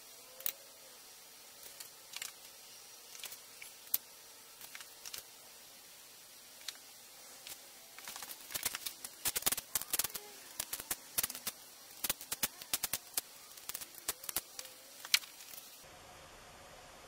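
Scattered light metallic clicks and clatter from handling the timing chain and sprockets on the front of an LS engine block, growing quick and busy from about eight seconds in.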